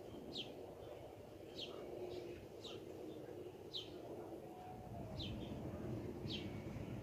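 A small bird chirping over and over, about once a second, each chirp a short downward sweep, over a low steady rumble.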